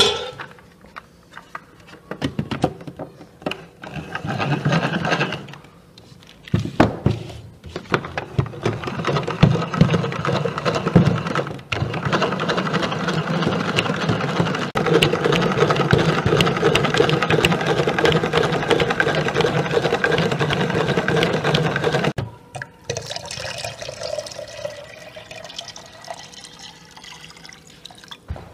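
Water running and pouring, on and off at first and then steadily for about ten seconds, with a rising tone near the end.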